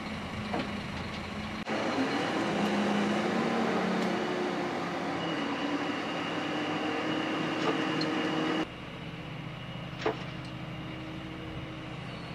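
Truck-mounted crane's diesel engine running steadily as it holds and turns the hull on slings. It is louder from about two seconds in, drops abruptly about eight and a half seconds in, and a single sharp knock sounds near ten seconds.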